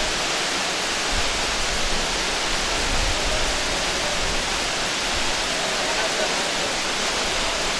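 Waterfall pouring into its plunge pool: a steady, loud rush of falling water.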